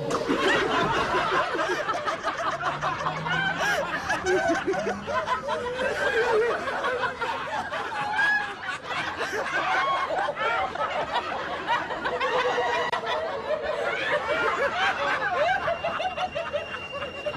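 Contagious laughter spreading through a group of passengers: many people giggling and snickering at once, with overlapping bursts of laughter from several voices throughout.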